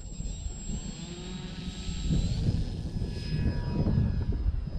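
Electric motor and propeller of a SIG Four Star 20EP RC plane whining at takeoff power as it runs across the grass and climbs out, the pitch stepping up about two seconds in. A low rumble of wind on the microphone lies underneath.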